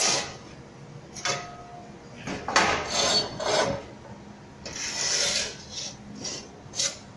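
Several rough scraping strokes of uneven length with short pauses between them, like steel plate being rubbed or dragged across a hard surface.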